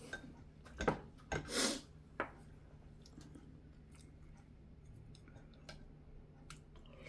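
Eating sounds: a few sharp clicks of chopsticks and a wooden spoon against a small bowl, with chewing, busiest in the first two seconds, then only faint ticks.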